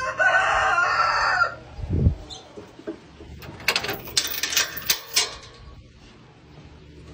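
A rooster crows once, a pitched call lasting about a second and a half. A low thump follows about two seconds in, then a metal chain rattles and clinks against a steel gate for a couple of seconds.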